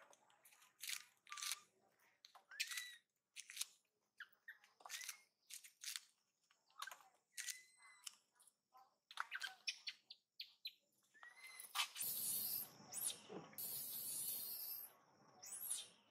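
Short, high-pitched chirps and squeaks come one after another, each sweeping quickly down in pitch. From about two-thirds of the way through, a louder rushing noise joins them and becomes the loudest sound, with more chirps over it.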